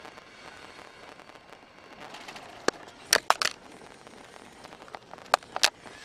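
Sharp clicks and knocks from the camera being handled: a single click, then a quick cluster of several near the middle and two more near the end, over the steady hiss of a car cabin on the move.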